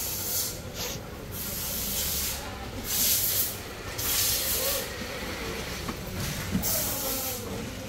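Hissing that comes in several separate bursts of about a second each.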